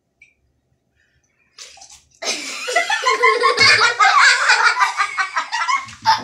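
Two girls bursting into laughter about two seconds in, spluttering through mouthfuls of water.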